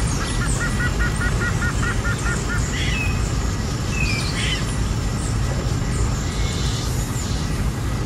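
Heavy rain rushing steadily on a moving car. Over it, a quick run of about ten short, high, bird-like calls in the first two and a half seconds, then two short falling chirps about three and four seconds in.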